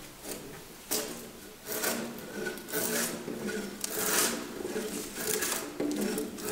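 Steel edge tools shaving wood: a wide chisel paring a joint, then a drawknife pulled along a log in a series of scraping strokes, each cut lifting a shaving.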